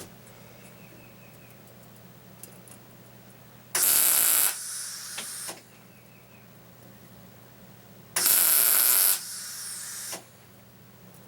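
Wire-feed welder laying two short tack welds: two bursts of hissing arc noise about four seconds apart, each about two seconds long and loudest at the start. A steady low hum runs underneath.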